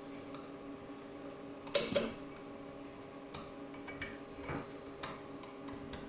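Metal clicks of a number-six Allen key turning in the vertical adjustment of a heavy concealed door hinge. There are two sharp clicks close together about two seconds in, then a few lighter scattered ticks, over a steady low hum.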